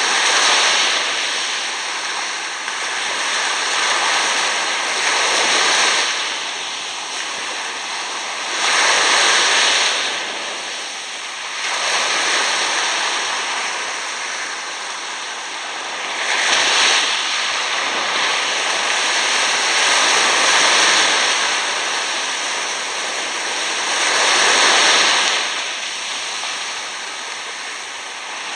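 Small waves washing up over sand at the water's edge and draining back: a foamy hiss that swells and fades every four seconds or so.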